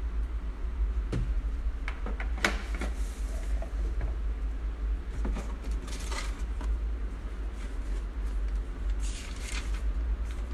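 Unpacking handling noise: a few light clicks and knocks as the plastic kettle and its power base are handled, then brief rustling as a hand reaches into the cardboard box and a paper leaflet is pulled out. A steady low hum runs underneath.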